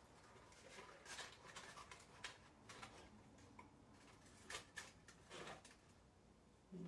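Faint crinkling and rustling of dry painted leaves and dried wreath twigs being handled and tucked into place. There are a few short crackles spread through, with light handling noise between them.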